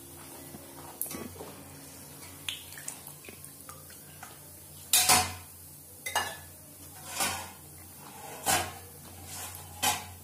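Wire-mesh skimmer clinking against a steel kadhai as fried golgappe are scooped out of the oil: a few light taps at first, then about five louder metallic knocks roughly a second apart in the second half.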